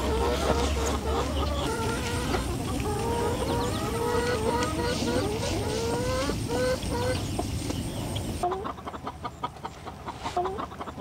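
Chickens clucking, many short calls one after another. About eight seconds in, the sound drops quieter, leaving scattered clicks and an occasional call.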